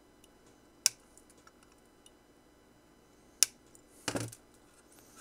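Flush cutters snipping component leads on a soldered circuit board: two sharp snips about two and a half seconds apart, followed near the end by a short, rougher scraping noise.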